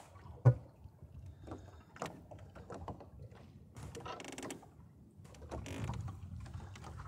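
Small wooden sailboat under sail: knocks, clicks and short creaks from its rigging, gear and hull, with one sharp knock about half a second in, over a faint low rush of wind and water.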